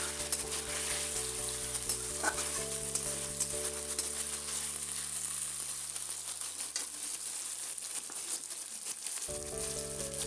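Onions, tomatoes and slit green chillies sizzling in hot oil in a kadai (wok), with small clicks and scrapes as a spatula stirs them.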